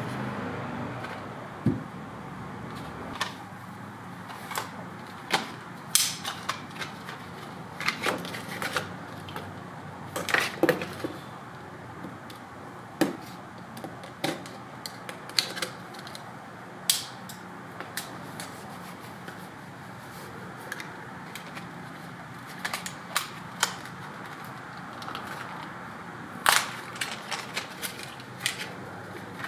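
Irregular clicks and taps of hard plastic being handled as the tail light assembly and bulb socket are worked loose by hand, some sharper and louder than others.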